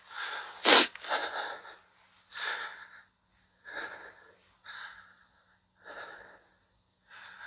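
A person breathing hard close to a phone's microphone while walking, one heavy breath about every second, the second breath the loudest.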